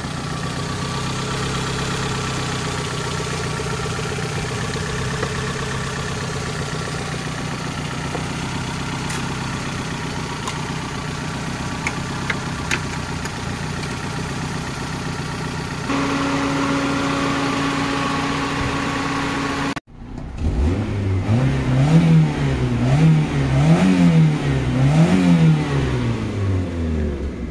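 Freshly overhauled Hyundai Santro Xing 1.1-litre four-cylinder petrol engine idling steadily just after its first start, with a steady higher hum joining in about sixteen seconds in. After a brief break near twenty seconds, the engine is revved about five times, its pitch rising and falling with each blip.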